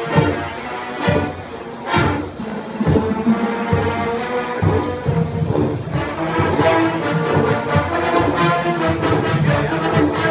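Marching band playing: held brass chords over drums, with sharp percussion hits near the start and about two seconds in, the brass filling out from about the middle on.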